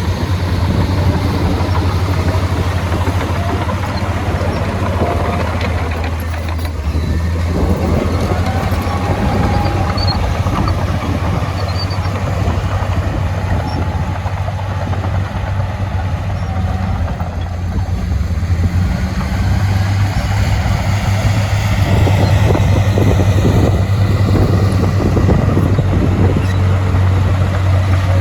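Heavy diesel earthmoving machinery running under load, a steady deep engine drone with mechanical clatter, a little louder in the last few seconds.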